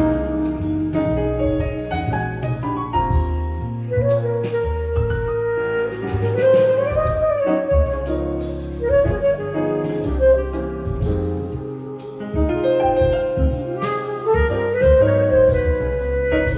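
Jazz recording with a saxophone melody over piano, played back through a Yamaha CA-2000 stereo integrated amplifier.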